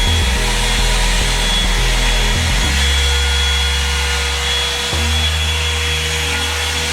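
Revlon 2-in-1 hot-air dryer brush running steadily, its motor blowing with a steady whine. Its low hum shifts twice as the brush works through the hair.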